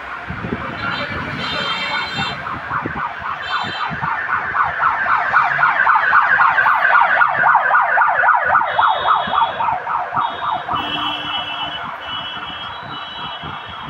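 A rapidly warbling siren passes, growing louder to a peak about midway and then fading away. Short horn toots sound several times over it.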